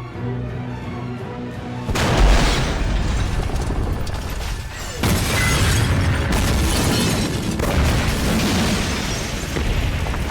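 Dramatic score, then a loud explosion boom about two seconds in, a second blast about five seconds in, and a heavy rumble of the fireball carrying on under the music.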